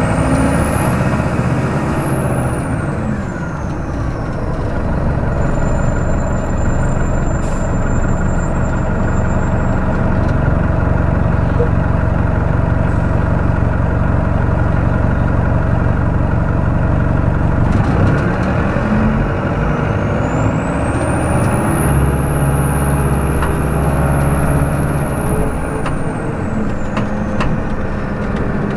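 Detroit Diesel Series 50 diesel engine of a 2002 New Flyer D40LF transit bus, heard close up, running steadily at low revs for much of the time. About eighteen seconds in it revs up as the bus pulls away, with a high turbo whistle that rises, holds and then falls away as the revs drop near the end.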